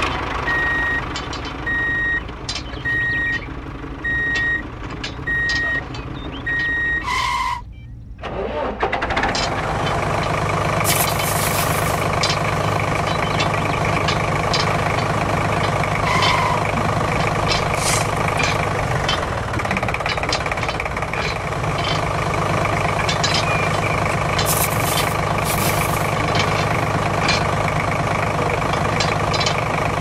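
Vehicle backup alarm beeping at an even pace for about seven seconds, then a steady engine drone with scattered clicks and knocks, the sound of the miniature construction machines at work.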